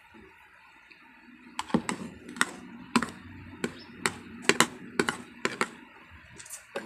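Metal spoon clinking and scraping against a ceramic plate while scooping rice and scrambled egg: a run of sharp, irregular taps starting about one and a half seconds in.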